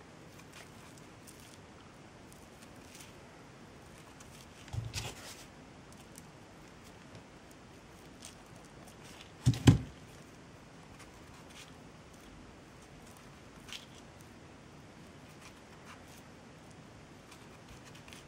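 Faint handling noise of hands working glued jute twine onto a craft figure, with small scattered clicks. A short clatter of knocks comes about five seconds in and a single sharp, louder knock near ten seconds in.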